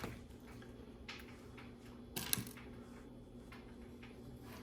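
Small plastic LEGO pieces clicking and clattering as they are handled, with a short louder clatter about two seconds in.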